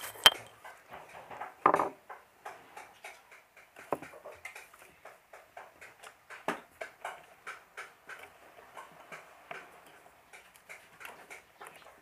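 Stand fan running after a switch repair, with a light ticking about three times a second and two louder clicks in the first two seconds.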